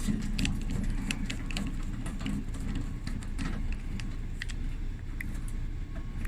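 Screws being backed out of a Kenmore dryer's top panel with a screwdriver: scattered light metal clicks and scrapes, over a steady low hum.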